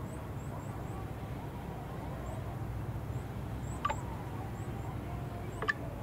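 Steady low outdoor rumble with small birds chirping faintly and high, and two short sharp calls, about four and five and a half seconds in.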